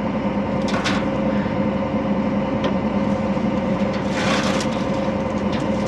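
John Deere combine running steadily with an even, droning hum. Brief rushes of noise come through about a second in and again around four seconds in.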